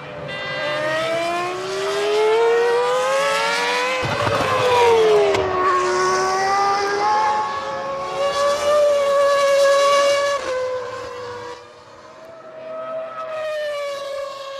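Formula One cars' V10 engines at high revs, the pitch climbing through the gears, falling sharply about four seconds in, climbing again, then falling away before rising once more near the end.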